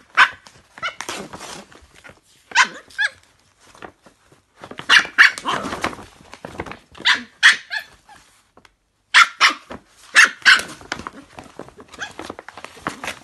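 Scottish terrier puppy barking in short, sharp yaps that come in quick clusters, while she rips a paper shopping bag: rustling and tearing paper between the barks.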